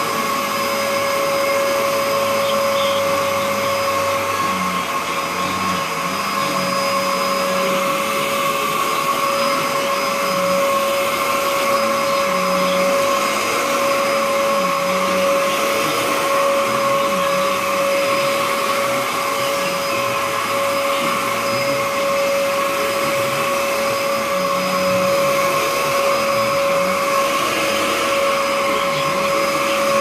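Upright bagless vacuum cleaner running steadily while vacuuming carpet, its motor giving a constant whine over the rush of air.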